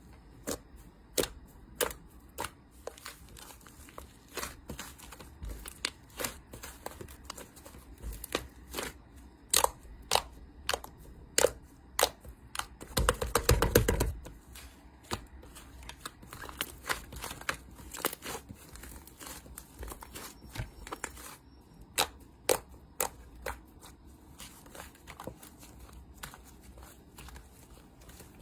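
Slime being squeezed and stretched by hand, giving irregular sharp clicks and pops, with a denser crackling stretch of about a second and a half midway.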